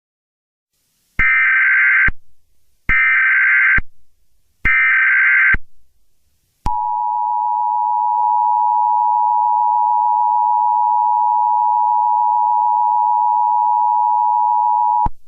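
Emergency Alert System signal. It begins with three short bursts of SAME digital header data, each about a second long with a brief gap between. Then comes the two-tone attention signal, held steady for about eight seconds and cutting off suddenly. The tones announce that an emergency message follows.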